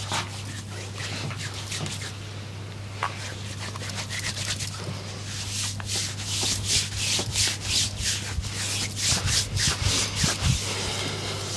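Hands rubbing in massage strokes, a soft hiss that becomes a regular back-and-forth rhythm of about two strokes a second in the second half, over a steady low hum.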